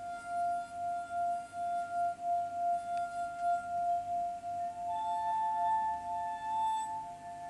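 Rubbed crystal glass instrument singing: one steady pure note with a slow pulsing wobble, joined about five seconds in by a second, higher note.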